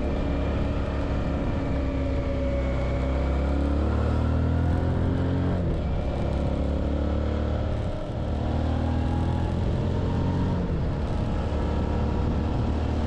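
Suzuki V-Strom 650's V-twin engine running under way. Its pitch falls about three seconds in, then holds steady, with a brief dip near eight seconds.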